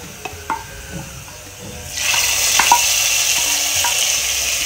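A wooden spatula clicks a few times against a small frying pan. Then, about two seconds in, a sudden loud sizzle starts and holds as hot oil with fried onion and garlic is tipped into a pot of vegetable curry to temper it.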